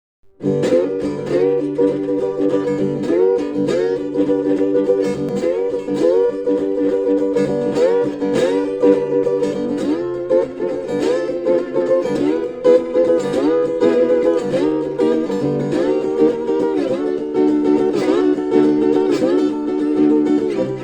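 Instrumental music on plucked strings, starting about half a second in: fast picked runs with bent notes over held lower notes.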